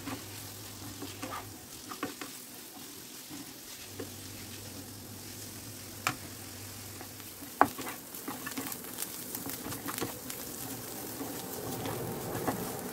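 Chopped onion and grated carrot sizzling in a frying pan, being fried until lightly golden, while a wooden spatula stirs and scrapes them around the pan. Two sharp knocks of the spatula on the pan come around the middle, the second the loudest, and the stirring gets busier near the end.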